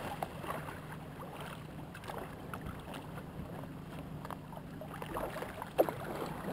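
Kayak paddles dipping and splashing in lake water, with small scattered splashes and water lapping against the hulls. A single sharp knock stands out near the end.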